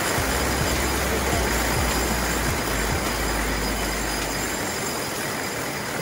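The trolley of a hanging basket-chair ride rolling along its overhead track, with a low rumble that drops away about four and a half seconds in, over the steady rush of a rocky stream.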